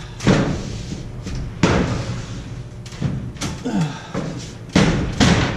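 Repeated thumps of a drywall sheet being shoved and knocked against the framing above a doorway, five or so sudden hits a second or more apart, as a piece that won't fit is forced into place.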